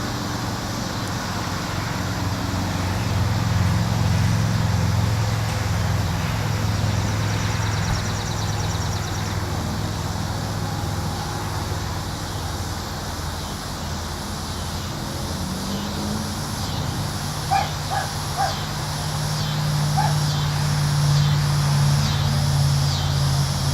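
A cicada calling in even, repeated pulses, about one and a half a second, becoming clear about halfway through. Under it runs a steady low hum, the loudest sound.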